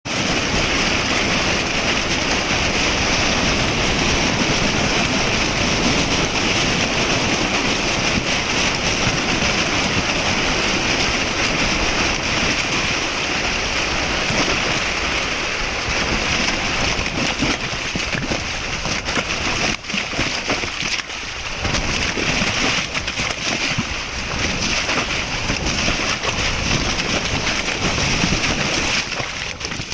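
Steady loud rush of splashing water, typical of trout being flushed from a stocking truck's tank into a pond.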